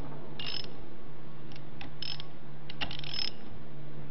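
Ratchet hand wrench clicking in short spurts, about four in all, as the socket-head locking screws of a keyless locking assembly are turned a quarter turn at a time to snug them in sequence. A steady low hum runs underneath.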